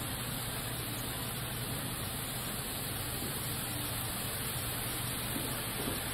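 N scale model trains running on a layout: a steady whirring rumble of small motors and wheels on track, mixed with an even background hiss.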